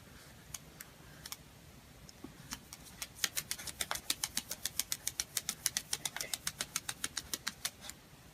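Light sharp clicks, a few scattered at first, then a quick, even run of about five a second from about three seconds in.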